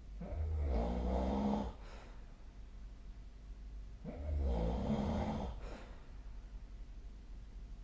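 Snoring: two long snores about four seconds apart, each lasting about a second and a half.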